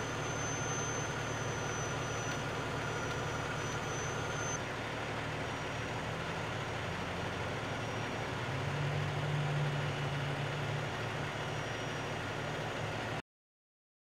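Fire engine's diesel engine idling, a steady low hum with a thin high whine over it for the first few seconds. The hum swells a little around nine seconds in, and the sound cuts off abruptly near the end.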